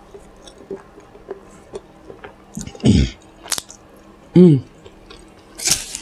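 Close-miked chewing and lip-smacking of someone eating a burrito, with two short falling 'mm' hums in the middle and a brief rustle of the foil-and-paper wrapper near the end.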